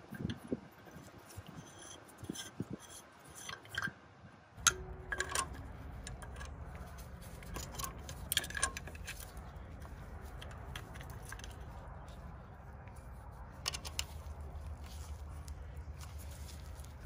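Scattered small metal clicks and taps as an oil pressure gauge and its brass fittings are handled and fastened into a bracket with a hand tool. A steady low rumble starts about five seconds in and continues underneath.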